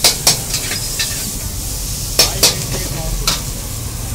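Metal spatula scraping and clanking against a wok as noodles are tossed and stir-fried, over a steady sizzle and a low rumble. There are several sharp clanks, the loudest a pair at the start and another pair about two seconds in.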